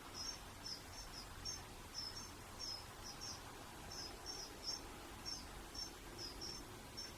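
Faint, high-pitched chirping from a small animal, in quick pairs repeating steadily about twice a second, over a low background hum.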